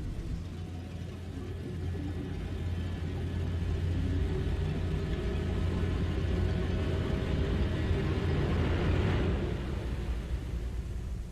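Horror sound-design drone: a deep, steady rumble with a hissing swell and faint held tones above it. The swell builds to a peak about nine seconds in, then falls away.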